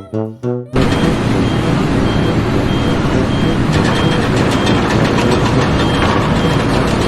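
Heavy vehicle engine running loud and steady, with a reversing alarm beeping about every three-quarters of a second. The sound cuts in sharply under a second in, as the music stops.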